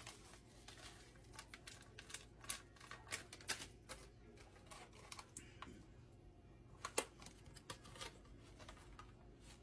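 Faint, irregular clicking and crackling of plastic food packaging being handled: a small bag of dried dill, then a plastic clamshell of grape tomatoes, with one sharper snap about seven seconds in as the clamshell is opened.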